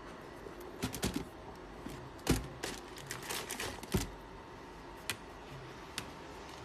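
Handling noise from sneakers being picked up and turned in their cardboard box: a scatter of light knocks and taps, with the two loudest about two and four seconds in, over a faint steady hiss.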